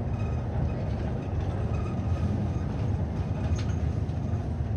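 City bus cabin while the bus drives along a street: steady low engine and road rumble, with a faint high whine above it.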